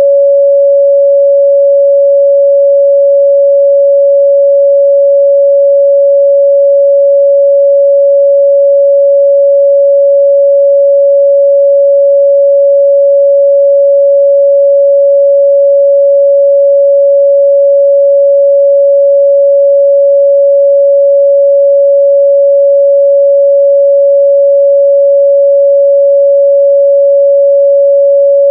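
A steady, loud 561 Hz sine-wave test tone, one pure pitch held without change.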